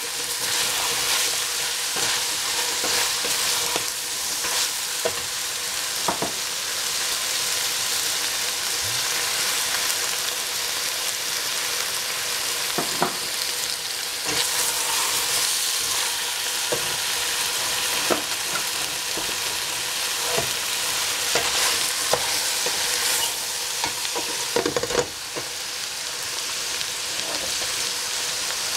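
Green beans sizzling as they are stir-fried in a steel pot, with a wooden spatula scraping and knocking against the pot every few seconds.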